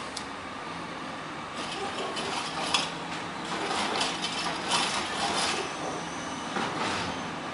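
A Heil Rapid Rail automated arm on a CNG-powered CCC LET2 garbage truck lifts and dumps a trash cart, with several knocks and clatters of cart and trash, the sharpest about three seconds in, over the steady running of the truck.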